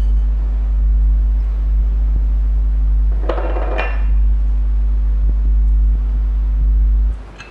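Loud, steady low electrical hum on the open phone line of an incoming call-in, cutting off suddenly near the end. A couple of brief clatters of a bowl come about three seconds in.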